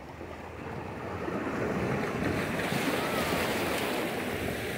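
Sea surf breaking and washing over shore rocks, swelling over the first two seconds and then holding steady, with wind on the microphone.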